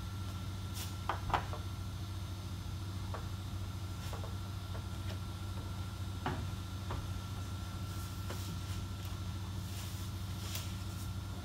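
A few light knocks and clicks as a bare replacement car door is carried and held up against the body for a test fit, over a steady low hum. The sharpest knocks come about a second in.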